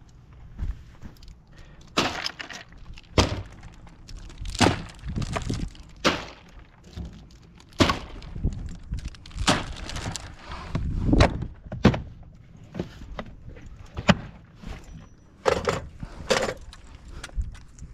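Carpentry work: irregular knocks and thuds of wood, roughly one every second or so, some sharp and cracking.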